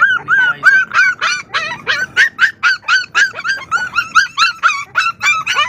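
A litter of pit bull puppies crying together, a rapid, overlapping run of short high yelps, several a second. They cry out at the sight of their mother, wanting to be let out to feed.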